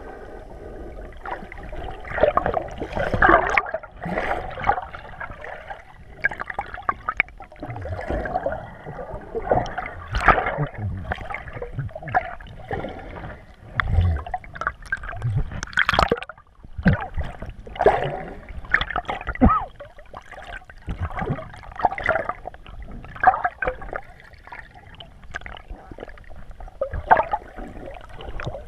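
Water sloshing and gurgling around a submerged GoPro camera, muffled by its waterproof housing, coming in irregular surges about every second.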